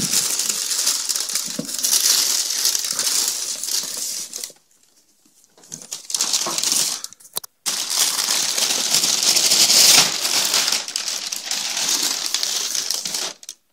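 Thin plastic wrapping crinkling and rustling as it is pulled off a projector's carrying case, in stretches broken by a short pause a little over four seconds in.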